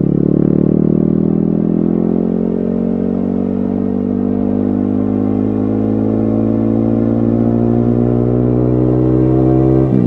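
Yamaha XSR155's single-cylinder engine running through a DIY-modified exhaust, its pitch rising gradually as the bike accelerates in one gear. Right at the end the sound dips briefly and the pitch drops, as at a gear change.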